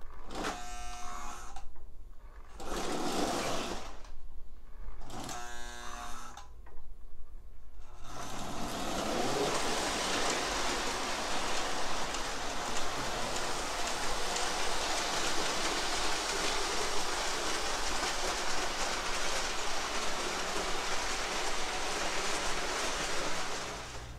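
O gauge model diesel train running on the layout track: three short pitched blasts in the first eight seconds, then a steady running noise of wheels and motors on the rails.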